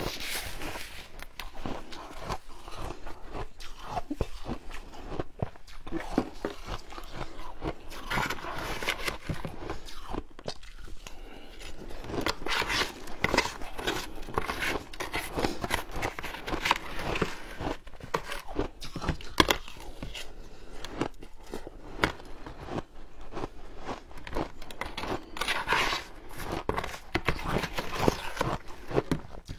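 Shaved ice crunching as it is bitten and chewed, with a metal spoon scraping and scooping ice in a plastic tub: a dense run of crisp crackles and clicks, busiest in stretches toward the middle and near the end.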